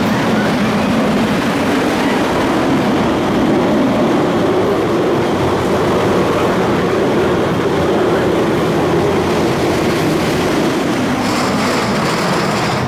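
Mine-train roller coaster cars rolling along the track, heard from on board: a steady, loud rumble of wheels on rails.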